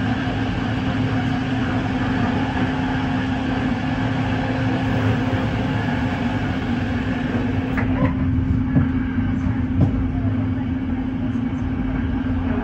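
Passenger train running, heard from inside the carriage: a steady rolling rumble and hiss with a constant low hum. About eight seconds in the hiss drops away and a few sharp clicks follow.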